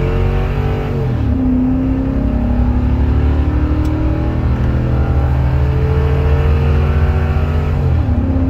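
A 2013 Ford F-250's 6.2-litre gas V8 at full throttle, accelerating under a heavy trailer load. The revs climb steadily, and the automatic transmission upshifts about a second in and again near the end, each shift dropping the engine's pitch.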